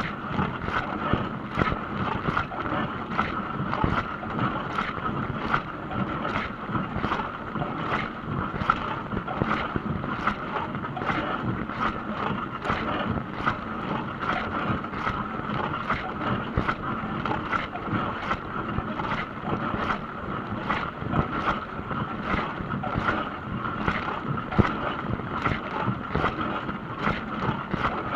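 Dishwasher running a wash cycle: water spraying and sloshing inside the tub, a steady rushing wash broken by frequent sharp splashes, about two a second.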